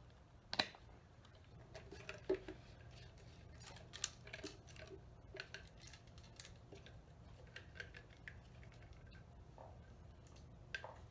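Scattered light clicks, taps and rustles of plastic decoration parts being handled and fitted together, the sharpest click about half a second in, with others around two and four seconds in. A faint steady low hum runs underneath.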